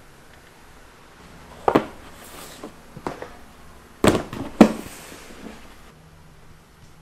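Hard plastic trays being handled and stacked on a stainless steel worktable, giving four sharp clatters. The last two come close together and are the loudest.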